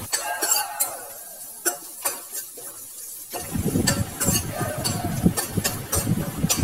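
Slotted spatula scraping and stirring dried red chillies, curry leaves and ground paste frying in oil in a kadai, with a faint sizzle. The strokes come repeatedly and grow fuller and busier about halfway through.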